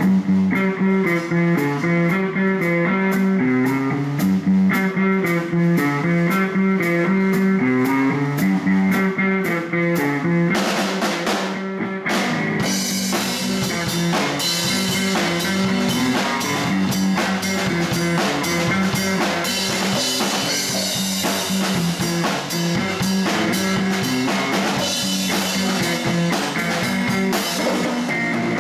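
Live blues band playing an instrumental: electric bass walking a repeating line under electric guitar and a drum kit keeping time on the cymbals. About ten seconds in a cymbal wash leads into fuller playing with more cymbal.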